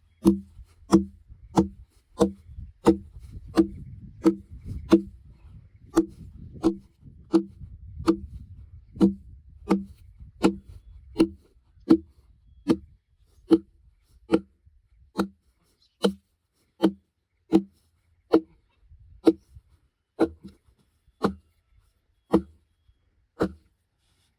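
Sledgehammer striking the bark of a freshly cut ironbark log at a slight angle, a steady run of dull thuds about one and a half a second that slows a little near the end. The blows are loosening the bark from the sapwood so that it can be levered off.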